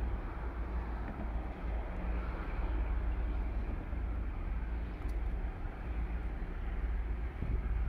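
Utah Central GP15-1 switcher locomotives, each with an EMD 12-cylinder two-stroke diesel, running at a distance: a low, steady rumble with a faint engine hum.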